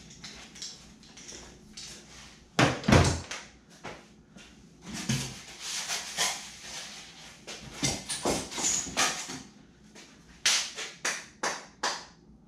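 Workshop handling noises: a loud knock about three seconds in, then irregular scraping and rubbing as a long strip of rigid foam board is handled and fitted into a foam boat hull.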